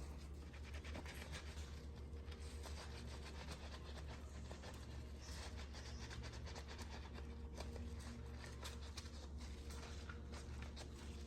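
Faint, continuous rubbing and scratchy ticks of hands scrubbing a soapy silicone watch band, over a steady low hum.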